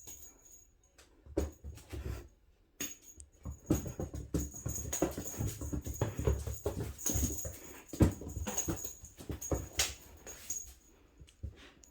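A house cat being spun around by hand: irregular rubbing and knocking handling noise with heavy low rumble, along with animal sounds from the cat, running almost continuously from about three seconds in until near the end.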